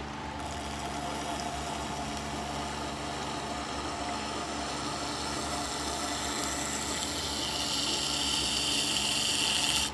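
WEN wet grinder's stone wheel turning with a steady motor hum while a shear blade held in a scissor jig is ground against the wet stone. The grinding hiss grows louder toward the end and cuts off suddenly.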